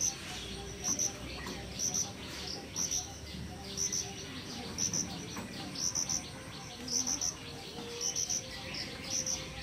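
A cricket chirping: short high-pitched chirps repeating about once a second, often in pairs, over faint steady background noise.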